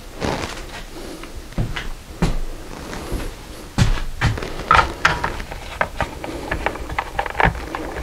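Things being handled and fetched at a workbench: a run of irregular knocks and clicks, the loudest about four to five seconds in.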